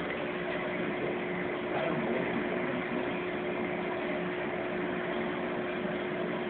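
Steady hum and rushing of aquarium circulation pumps and filtration, with one constant tone over an even wash of noise.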